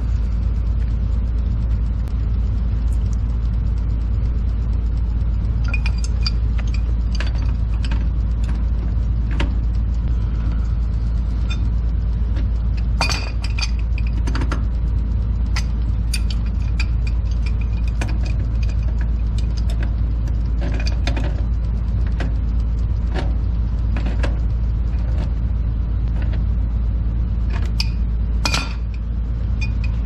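Scattered metal clinks and knocks of pipe wrenches and black-iron gas fittings as a gas dirt leg is threaded together at a water heater, some ringing briefly, over a steady low rumble.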